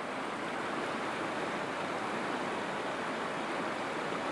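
Shallow rocky river rushing over stones: a steady, even rush of water.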